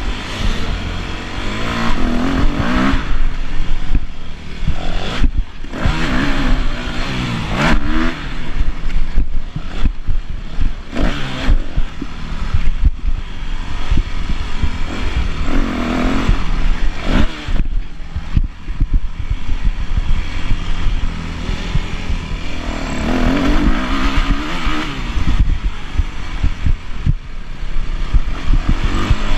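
Yamaha YZ250F four-stroke single-cylinder motocross engine, ridden hard and close to the microphone. It revs up in repeated rising sweeps and drops back between them as the throttle is opened and closed.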